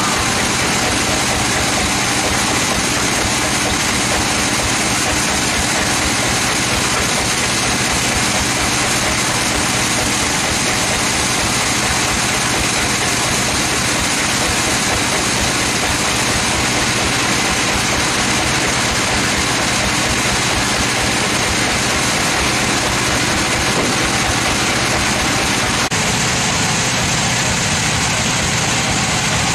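Sawmill machinery running steadily: an even, loud mechanical noise with a constant high whine and a low hum.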